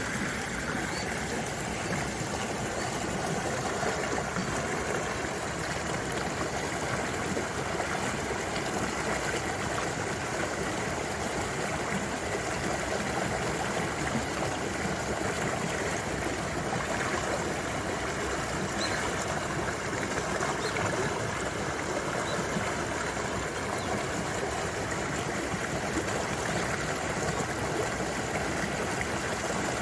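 Mountain valley stream flowing with a steady, even rush of water.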